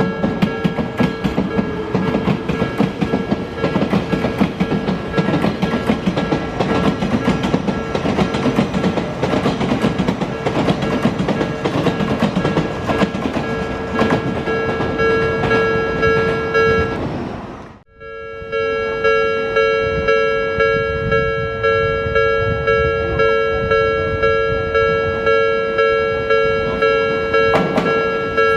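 A Japanese level-crossing warning bell rings steadily in a repeating pattern, about one and a half strokes a second, while an Odakyu Line train rumbles and clatters over the crossing. About two-thirds through the sound cuts out for an instant. After that the bell rings on more clearly over a quieter rumble.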